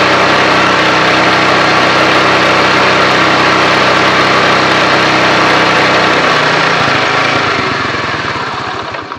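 Honda motorcycle's single-cylinder air-cooled engine running steadily at a slightly raised idle while its carburettor mixture screw is being set. About six seconds in, its firing slows and the engine runs down to a stop.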